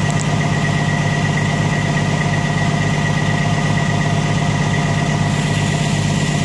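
Diesel semi-truck engine idling steadily, a low pulsing hum with a steady high tone above it.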